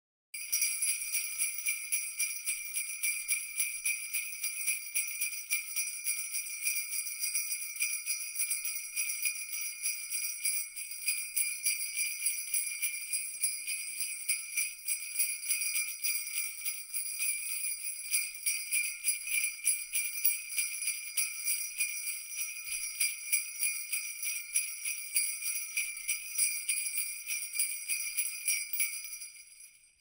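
Jingle bells shaken continuously in a dense, even jingle, starting a moment in and fading out near the end.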